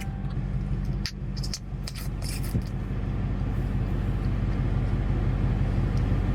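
Steady low rumble of a car's engine and tyres heard from inside the cabin while driving, with a few faint clicks and rustles about one to two and a half seconds in.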